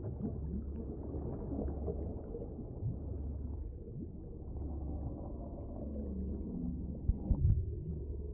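Low, rumbling underground ambience from a horror film soundtrack, with low tones that slide up and down, and a short cluster of heavy thumps about seven seconds in.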